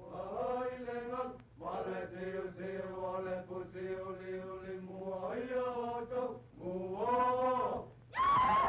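Voices chanting in long held notes, in phrases with short breaks between them; a louder, higher phrase starts near the end. The chanting is heard through an early-1930s film soundtrack.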